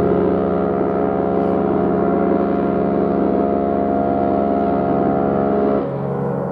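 Cruise ship horns: one loud, deep blast starts at the outset and cuts off sharply about six seconds in. A quieter, lower horn note keeps sounding beneath it and carries on after it.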